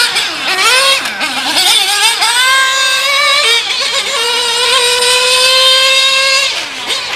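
Kyosho Inferno GT3 nitro RC car's two-stroke glow engine running at high revs with a buzzing whine. It rises in pitch over the first couple of seconds, holds a nearly steady high pitch for several seconds, then falls off near the end.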